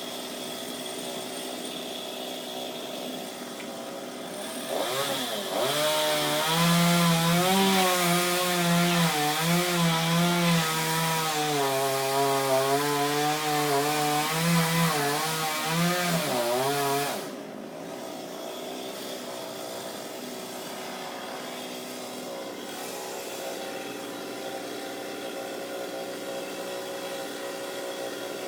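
Chainsaw idling, then from about five seconds in run up and cutting for about twelve seconds, its pitch wavering and sagging under load, before it drops abruptly back to idle.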